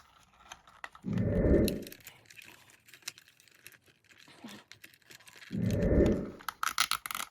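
A plastic zip tie being fastened by hand, with a quick run of small ratchet clicks near the end as it is pulled tight. Two loud, muffled low rumbles come about a second in and about six seconds in.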